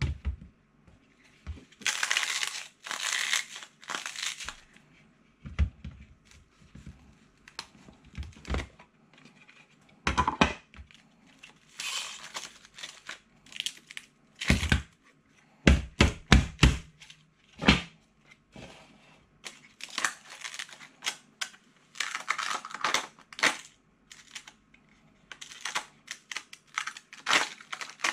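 Plastic ice cube tray being twisted and flexed, crackling in bursts as the frozen cubes break loose, with several short sharp knocks against a stainless steel tray.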